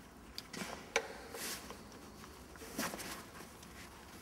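Light handling noises as a strap and the trike's tubular seat frame are worked by hand: a few scattered soft clicks and rustles, the sharpest about a second in.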